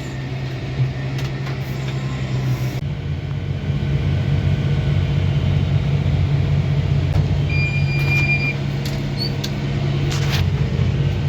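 Diesel engine of farm harvesting machinery running steadily, its note shifting and getting louder about three seconds in. A short high beep sounds about eight seconds in.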